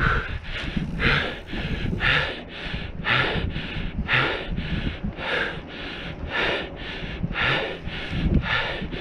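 Mountain biker panting hard close to a helmet-mounted camera, about one breath in and out each second, over a steady low rumble from riding on the dirt trail.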